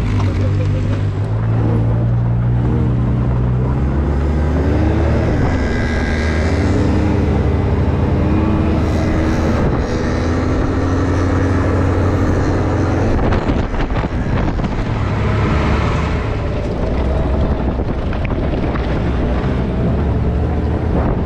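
Can-Am Maverick X3 side-by-side's turbocharged three-cylinder engine running as it drives, its pitch rising and falling with the throttle. A few sharp knocks about two-thirds of the way through.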